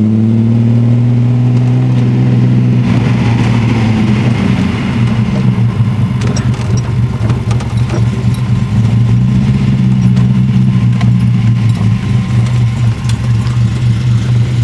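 Datsun 240Z's straight-six engine on triple 45 Weber carburettors, heard from inside the cabin while the car is driving. The engine note eases off slightly in the first few seconds, then holds at steady moderate revs.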